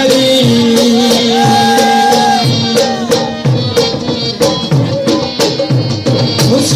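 Live Sindhi Sufi folk music on harmonium and dholak: a steady drone with a melody held above it, and dholak strokes in a rhythm whose bass notes slide down in pitch.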